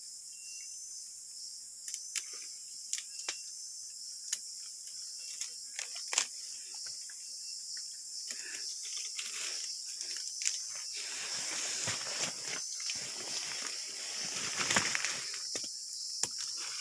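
A steady, high insect chorus runs throughout. Over it come sharp clicks and snaps as chayote vine shoots are handled and picked, and from about halfway, heavier rustling of leaves and vines being pushed through.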